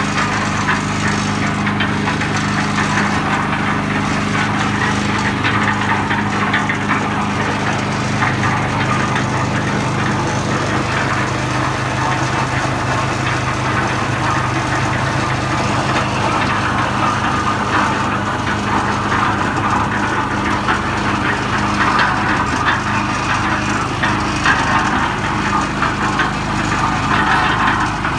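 Small engine of a portable concrete mixer running steadily, with a slight change in its tone about ten seconds in.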